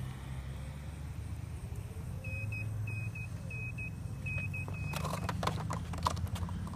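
A steady low rumble, then from about five seconds in a quick run of sharp knocks and scuffs as the rider jumps off a self-balancing hoverboard and the riderless board clatters against the curb.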